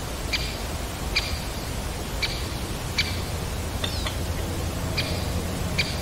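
Great spotted woodpecker giving its sharp single 'kik' call six times, roughly once a second, with a thinner falling note about four seconds in. A steady low rumble runs underneath.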